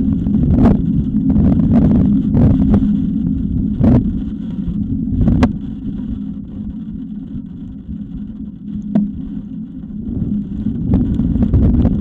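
High wind buffeting the outdoor nest camera's microphone: a loud low rumble that surges in gusts, eases after about four seconds and builds again near the end, over a steady low hum, with several sharp taps or knocks scattered through it.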